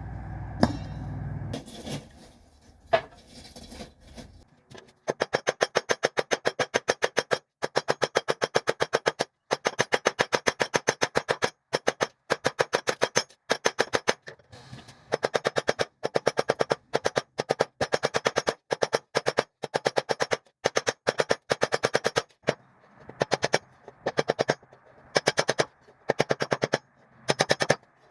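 Rapid runs of hammer blows on hot steel, many strikes a second in bursts of one to two seconds with short pauses, each blow ringing: rebar being forged out. A steady low hum runs under the first two seconds.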